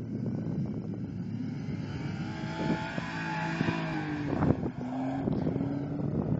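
BMW X1 SUV's engine revving hard as it drives past through soft sand, its pitch climbing to a peak as it passes about four seconds in. A sharp thump stands out about four and a half seconds in.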